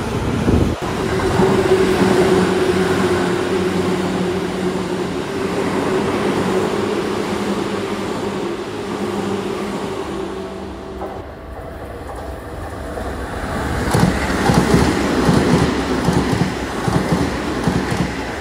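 Seibu 2000-series and 20000-series electric commuter trains passing through a station at speed. For the first half there is a steady running hum. Near the end a fast clatter of wheels over rail joints comes in.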